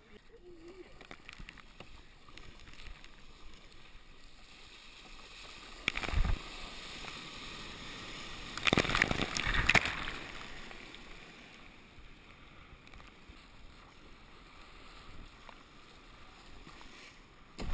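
Sea kayak moving through surf, with a steady wash of water around the hull. A loud splash comes about six seconds in, then a longer run of heavy splashing and rushing water around nine seconds as the boat meets breaking white water.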